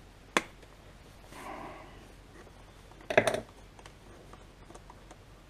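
Small metal clicks and clinks of hand work on a portable generator's carburetor: one sharp click near the start, then a short clattering burst about three seconds in, followed by a few light ticks.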